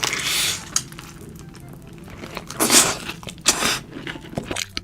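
Crunchy food bitten and chewed close to the microphone: a loud crunch at the start and two more about two and a half and three and a half seconds in, with small crackles between.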